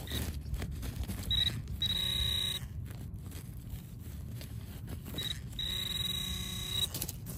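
Handheld metal-detecting pinpointer alerting as its tip is pushed through playground wood chips near a buried coin: short high beeps, then a longer buzzing tone a little under two seconds in, and the same again with a longer tone from about five and a half seconds. Faint rustle of wood chips under the probe.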